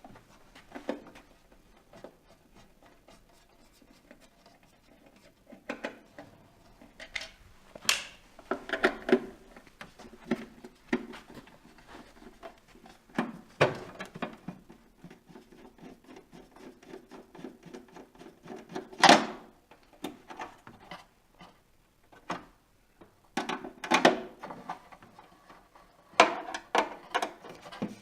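Phillips screwdriver undoing the plastic side-cap screws of a vinyl cutting plotter: irregular clicks, scrapes and light rattles of the tool and screws against the housing, with one louder clack about two-thirds of the way through.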